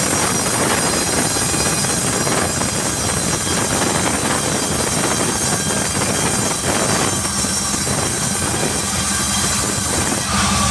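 Sawmill saw cutting through a jackfruit log, a loud steady rasping noise with brief swells. Near the end the cutting noise drops away, leaving the steady hum of the saw's machinery running.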